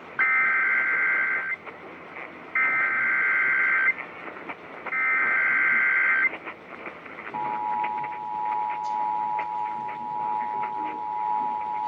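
Emergency Alert System SAME header: three identical bursts of rapid warbling data tones, each about a second and a half long with short gaps between, opening a test of the Emergency Alert System. About seven seconds in, the EAS two-tone attention signal starts and holds steady.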